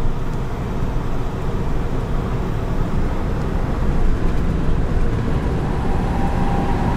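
Steady road and engine noise inside a moving car's cabin on the highway, a low, even rumble with no distinct events.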